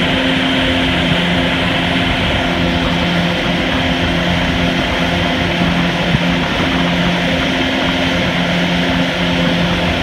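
Motorboat engine running steadily at speed while towing a tube, over a rushing of wind and churning wake water.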